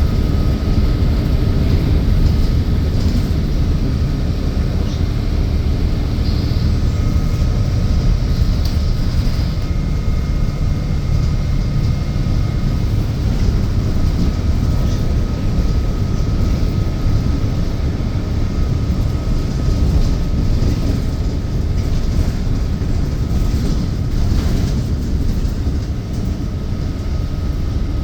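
Inside a city transit bus while it rides: a steady low rumble of engine and road, with a thin steady whine above it and a few faint rattles.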